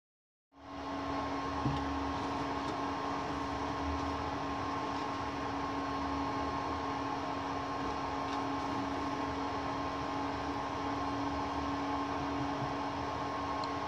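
Rabbit Mill v2.0 desktop CNC mill running with its motor humming evenly, a steady whine of two tones held over a light hiss. It starts abruptly about half a second in, and a single light tick comes near two seconds.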